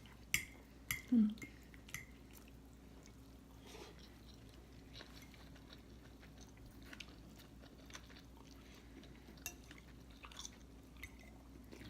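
People chewing food quietly, with a few sharp clinks of cutlery against dishes in the first second or so and faint scattered ticks after.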